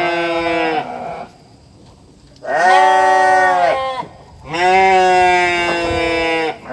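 Domestic goats bleating: a call trailing off about a second in, then two long, loud bleats one after another.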